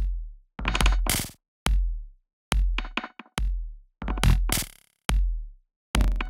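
Programmed electronic drum loop: layered synthesized kicks with a deep low thump, just over one a second, and twice a bright, noisy snare hit layered with a crushing-glass sample, its parameters automated for variation.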